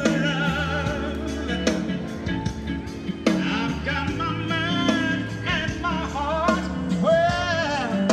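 Rock music with a singer over guitar and a steady band backing.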